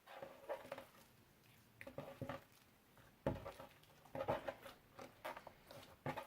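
Slime mixed with magic clay being kneaded and stretched by hand, giving groups of small sticky clicks and squelches with short pauses between them.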